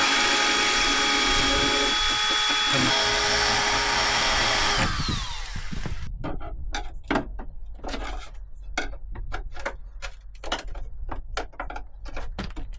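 A power drill runs steadily for about five seconds, then winds down with a falling whine. A string of irregular sharp clicks and clacks from hand-tool work follows, while the air intake is being pop-riveted back on.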